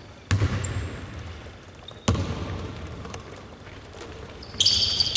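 A basketball bouncing twice on an indoor court, each thud echoing in the hall, then high squeaking near the end.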